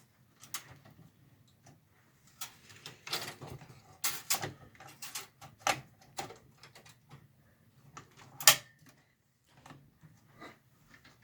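Scattered clicks and knocks of an RX 580 graphics card being handled and fitted into a desktop computer case, with one sharp click about eight and a half seconds in.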